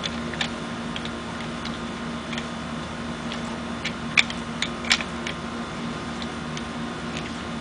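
Irregular sharp clicks and knocks of hard plastic and metal parts being handled as a paintball marker is put together, the two loudest a little over four and five seconds in, over a steady low hum.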